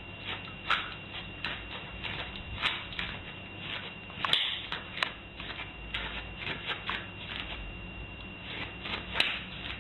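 A small dog's claws clicking and tapping irregularly as it steps about on a doormat and tile floor, a few light clicks a second with a couple of sharper taps.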